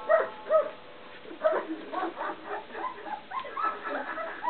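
Young puppies squeaking and whimpering in quick, short high calls, several a second, with a brief lull about a second in.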